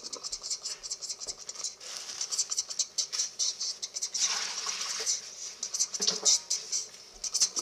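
Butter sizzling and crackling in a hot frying pan, a steady dense spatter of fine pops that swells and fades.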